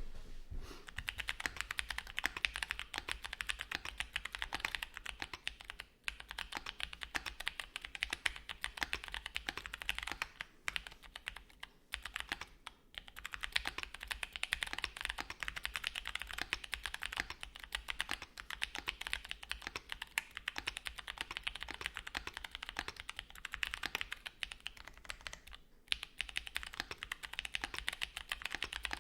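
Typing on a Luminkey x Bowl LX60 mechanical keyboard with Gateron Lanes switches on a polypropylene plate with plate foam and GMK keycaps: fast, continuous keystrokes with a few short pauses, and occasional deeper strokes from the unlubed stabilised keys.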